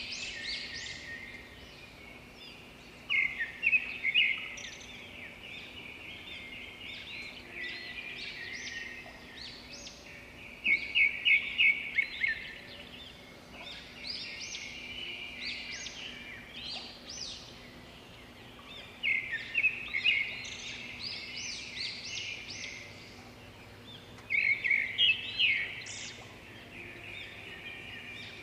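Birds chirping: loud runs of rapid chirps come about every eight seconds, with quieter chirping in between.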